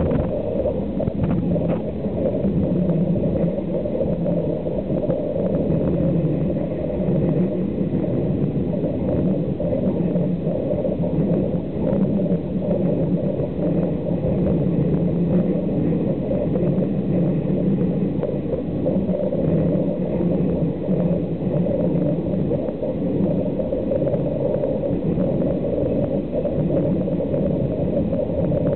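Rebuilt PCC streetcar running along the track, heard from inside the car: a steady low rumble of wheels and running gear, with a few faint clicks.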